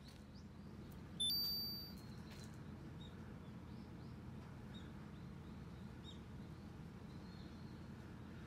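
A single high ding about a second in, fading within half a second, over a steady low outdoor hum with faint, scattered small bird chirps.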